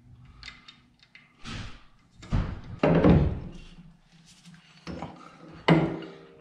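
Several clunks and knocks of heavy metal parts as a steering knuckle carrying its hub, rotor and brake caliper is handled and fitted into a coilover's lower bracket, the loudest knock coming about two and a half seconds in.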